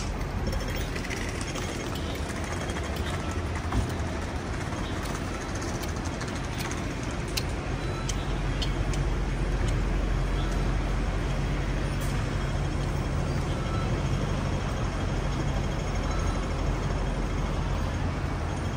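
City street traffic, with a motor vehicle's engine rumbling close by. The low rumble grows louder about halfway through and then holds steady.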